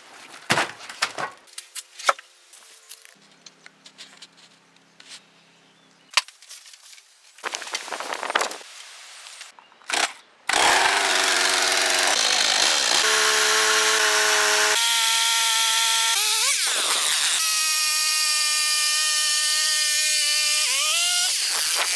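A few scattered knocks and crackles, then about halfway through a gasoline chainsaw starts running loud and steady, cutting into a hollow log. Its engine pitch shifts in steps as it is throttled and loaded, with two rising revs, the second near the end.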